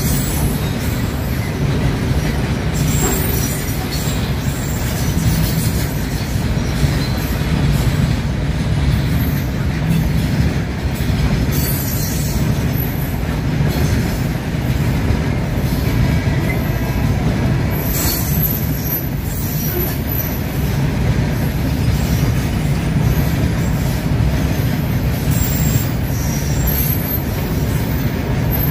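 Covered freight wagons of a goods train rolling past fast and close: a steady, loud rumble of steel wheels on rail, with thin high wheel squeals coming and going.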